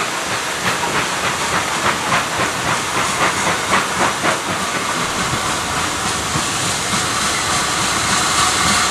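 Steam locomotives hissing loudly and steadily as a GWR 4300 Class Mogul approaches. A quick run of beats, two or three a second, sounds through the first half, and the hiss settles steadier in the second half.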